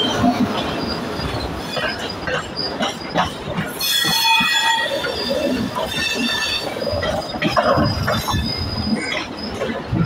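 Passenger train coaches rolling past close by, wheels clattering over the rail joints, with a high-pitched wheel squeal rising in about four seconds in and a thinner squeal lingering after.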